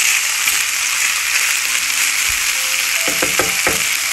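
Boiled rice frying in olive oil in a pan with a steady sizzle as it is stirred with a wooden spatula; a few quick knocks from the spatula about three seconds in.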